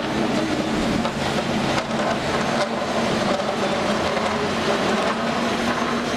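Steady street noise beside a cable car line: passing traffic over a continuous low hum, the haul cable running in its conduit beneath the street.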